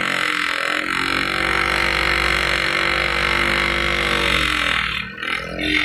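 Electric grinder with a stone wheel running steadily while a piece of rubber is pressed against it and ground down to size, a steady hum under a harsh grinding hiss. The pitch sags slightly and the grinding drops away briefly about five seconds in.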